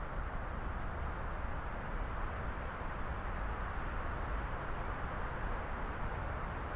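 Strong breeze blowing through a spruce forest: a steady rushing of wind in the trees, with a low rumble underneath.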